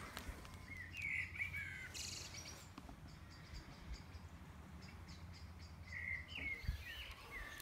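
A songbird chirping in short phrases, about a second in and again near the end, over a faint low rumble.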